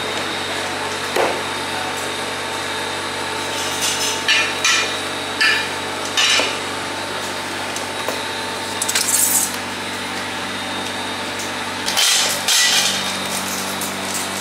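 Ground kebab meat being kneaded and slapped by hand in a large aluminium bowl, with several short wet slaps and knocks at irregular intervals. A steady electric machine hum runs underneath.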